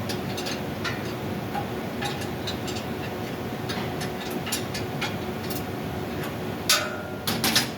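Scattered light metallic clicks and taps from tools and parts during blower installation work, over a steady background hum. Near the end comes a louder clank with a brief ringing tone, then a quick cluster of further clanks.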